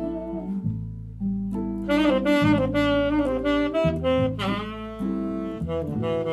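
Jazz saxophone solo: a run of changing notes with a bent, gliding note about four seconds in, over bass notes held underneath.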